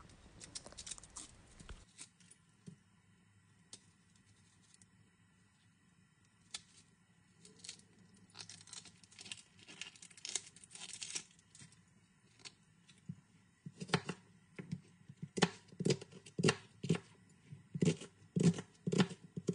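Dry, papery onion skin crackling and tearing as it is peeled off the onion by hand and knife, followed in the last few seconds by a kitchen knife cutting through the onion onto a plastic cutting board, about two sharp cuts a second.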